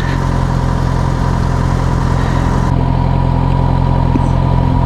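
Yamaha FZ6R motorcycle's inline-four engine running at a steady speed, with no rise or fall in pitch.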